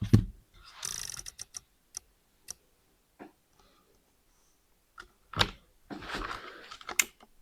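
Mechanical clicks and knocks from handling an air rifle and its gear: a loud knock at the start, a quick rattle of clicks about a second in, then scattered single clicks and a short rustle near the end.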